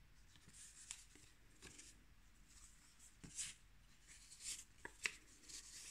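Faint rustling of paper pages being handled and turned in a handmade art journal, with a few light ticks, the sharpest a little after five seconds in.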